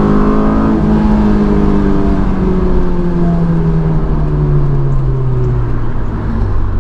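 Honda S2000's four-cylinder engine, breathing through an aFe Takeda intake, running under way. Its pitch climbs slightly in the first second, then the revs fall steadily for about five seconds as the car slows, over road noise.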